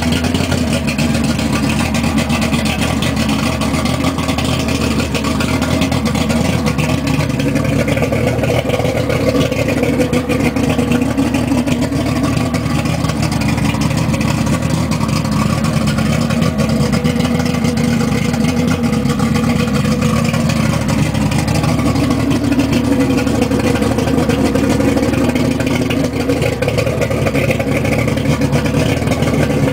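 Mercury 225 EFI V6 two-stroke outboard running steadily on a test stand, its pitch shifting slightly now and then.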